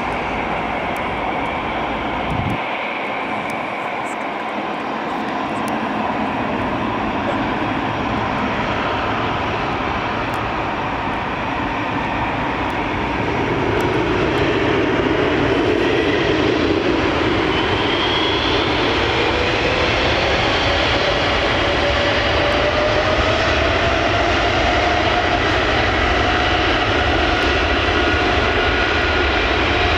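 Boeing 777-300ER's twin GE90-115B turbofan engines running, then spooling up to takeoff thrust about halfway through. The sound grows louder and a whine climbs in pitch as the takeoff roll begins.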